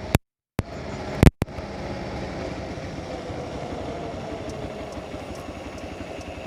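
Hero XPulse 200 4V's single-cylinder engine idling steadily, with an even low pulse. It is preceded by two sharp clicks and brief drop-outs of sound in the first second and a half.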